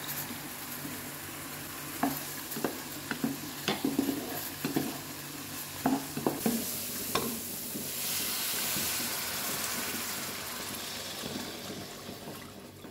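Food sizzling as it fries in a pan, with a utensil stirring and knocking against the pan in a flurry of clicks between about two and seven seconds in; the sizzle then swells briefly.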